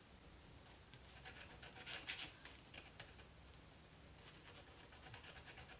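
Faint scratching of a pointed tool's tip on paper in short strokes, picking dried masking fluid off a painting. The strokes are loudest about two seconds in.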